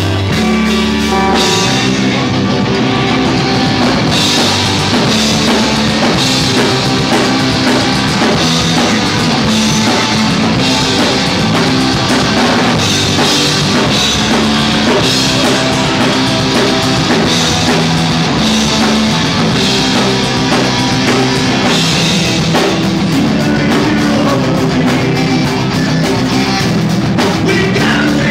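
Live rock band playing an instrumental passage on electric guitar and drum kit. A held low note gives way about a second in to the full band with the drums.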